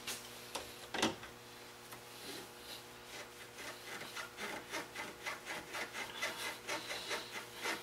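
Pliers on the spring clamp of a car's upper radiator hose, squeezing it and working it along the rubber hose: a sharp click about a second in, then repeated soft rubbing and scraping strokes.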